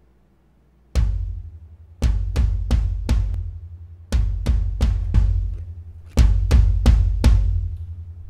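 Electronic drum backing track with deep, booming drums over a low bass rumble. There is a single heavy hit about a second in, then groups of quick drum strikes that repeat about every two seconds.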